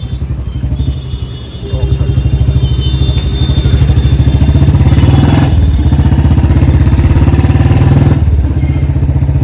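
Royal Enfield Standard 350 single-cylinder engine running under way through a free-flow bend pipe and short-bottle silencer, with an even exhaust beat. It gets louder about two seconds in as the throttle opens, dips briefly in the middle and eases near the end. The exhaust is leaking air at the header joint, which the owner says makes the note go uneven after light revving.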